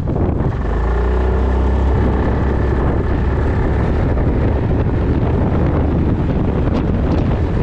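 Yamaha Majesty 400 scooter's single-cylinder engine running under way, with heavy wind buffeting the microphone throughout; a steady engine tone stands out between about half a second and two seconds in.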